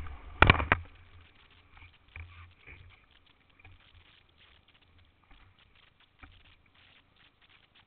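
Sea water splashing over a camera mounted on a surfboard: one loud splash about half a second in, then faint scattered patters and sloshes.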